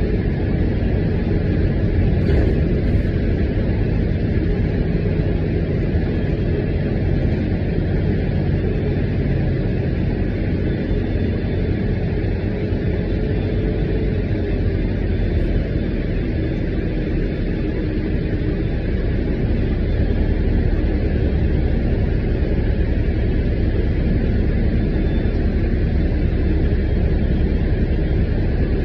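City transit bus heard from inside the cabin while under way: a steady low rumble of engine and road noise, with a faint engine hum running through it.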